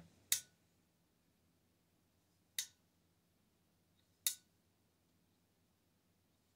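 Three short, sharp clicks about two seconds apart, over near silence.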